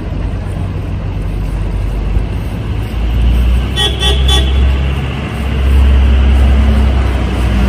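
City street traffic with a loud low rumble of passing vehicles, and a car horn honking in a few short toots about four seconds in.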